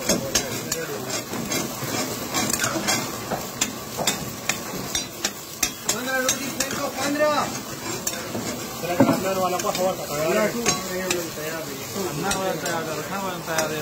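A long metal ladle stirring and scraping chicken karahi in a steel karahi wok, with irregular clicks and knocks against the pan over the steady sizzle of the sauce frying over high flame. The dish is at its finishing stage, just called ready.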